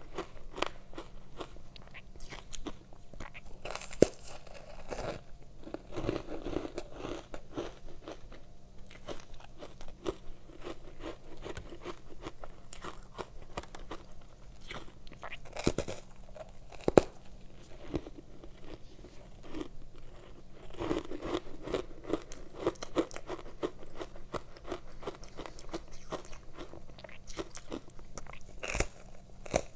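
Biting and chewing powdery frozen ice coated in matcha powder: soft, continuous crunching and crackling, with a few sharper cracks scattered through.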